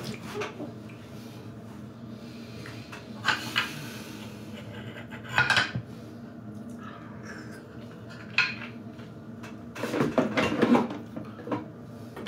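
Clay teapot and small tea cups knocking and clinking on a tea tray as they are handled: a few separate light knocks spread through, with a quicker run of clatter about ten seconds in.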